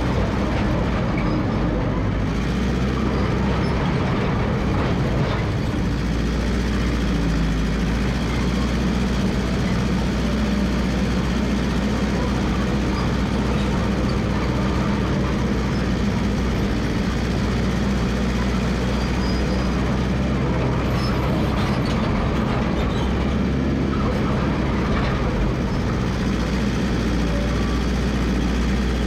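Massey Ferguson MF 300 crawler dozer running steadily at work, its engine giving a constant low drone.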